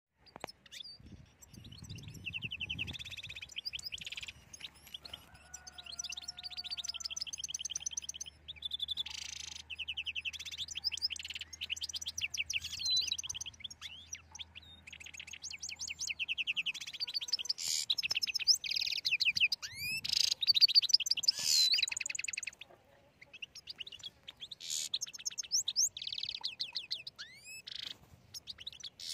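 European goldfinch song: rapid, high twittering phrases of a second or few, broken by short pauses. A faint low hum sits under the first half.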